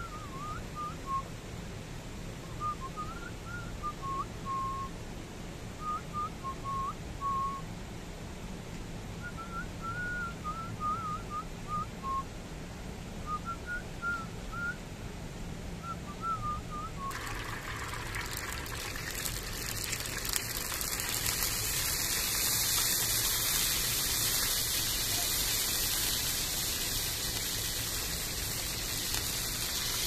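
Short, high chirps come irregularly over a quiet background. About seventeen seconds in, a steady hissing sizzle starts abruptly and grows louder: dough balls frying in a deep layer of hot oil.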